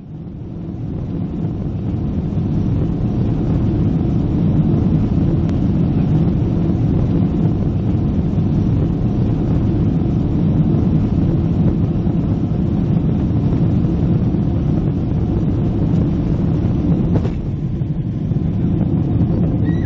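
Airliner cabin noise on the takeoff roll: a steady low rumble of the Boeing 767's jet engines and the runway, heard through the cabin. It swells over the first couple of seconds, then holds steady.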